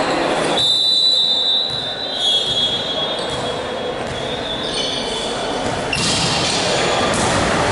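Volleyball court ambience in an echoing gym hall: high-pitched squeaks of sneakers on the court floor, most prominent about a second in, over a steady reverberant hum of the hall.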